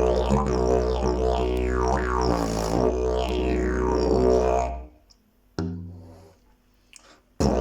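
Fiberglass triple-slide didgeridoo droning low, with rising and falling sweeps in its overtones as the player shapes the sound. The drone stops about five seconds in. After a short pause a brief higher note sounds and fades, and the drone starts again near the end.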